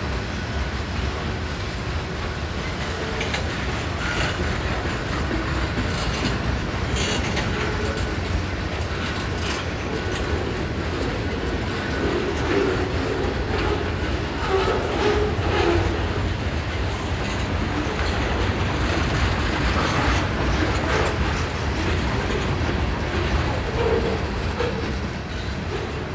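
Freight cars of a mixed freight train rolling past close by: a steady rumble of steel wheels on the rails, with scattered clicks and clanks as the cars go by.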